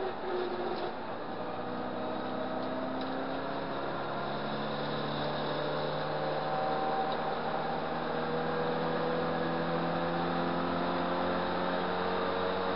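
A Riley 1.5's 1.5-litre BMC B-series four-cylinder engine heard from inside the cabin under racing load. After a brief dip in revs near the start, its pitch climbs slowly and steadily as the car accelerates, over road and wind noise.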